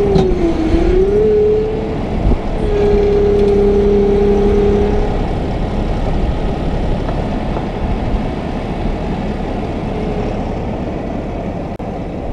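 Mahindra diesel tractor engine working under load as its rear three-point bucket is backed into a dirt pile and lifted: the engine note sags about half a second in and recovers, then holds steady for a couple of seconds while the bucket is curled and raised, before settling back.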